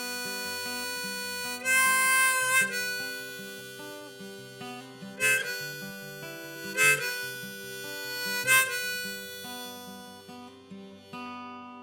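Harmonica playing over acoustic guitar in a song's instrumental ending, with a few loud, sharp notes standing out. The music fades off near the end.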